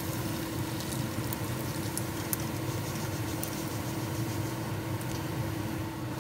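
Hot rendered bacon fat and fried bacon bits poured from a pot into a metal mesh strainer: the still-bubbling fat sizzles and patters through the mesh, with a few light clicks of a wooden spoon scraping the pot, over a faint steady hum.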